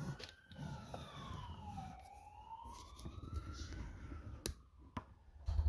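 Faint siren wailing slowly: it falls in pitch, rises again, then starts to fall. A couple of sharp clicks come near the end as the die-cast model is handled on the tabletop.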